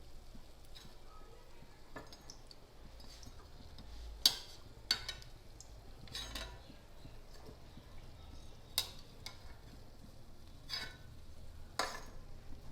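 A metal spoon clinking sharply against a pan and bowl several times, the loudest clink about four seconds in, as fried balushahi are lifted from hot ghee into warm sugar syrup, over a faint sizzle of frying.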